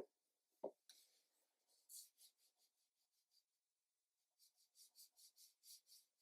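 Faint, quick brush strokes scratching across cotton watercolour paper, about four a second in two runs, after two soft knocks at the start.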